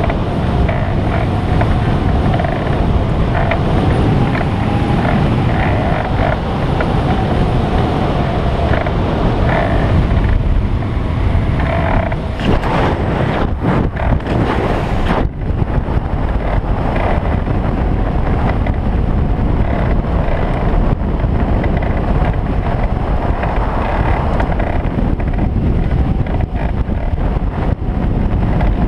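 Loud rushing wind on the microphone of an ultralight trike gliding with its engine stopped; no engine is running. A faint steady whistle sits in the rush for much of the time.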